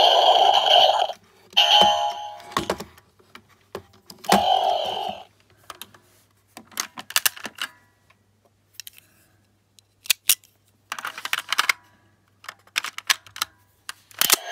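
Zandar Thunder toy sword playing three short electronic sound effects from its small speaker in the first five seconds. After that come scattered plastic clicks and rattles as the toy is handled and a Zyudenchi battery toy is loaded into it.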